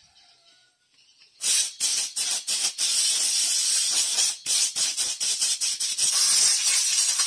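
Compressed-air blow gun hissing loudly as it blows through a Yamaha NMAX fuel pump filter to clean it. It starts about a second and a half in and runs on with a few brief breaks.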